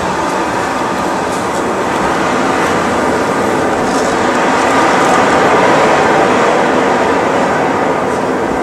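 A loud, steady rushing roar, a stage sound effect for a giant wave, swelling a little near the middle.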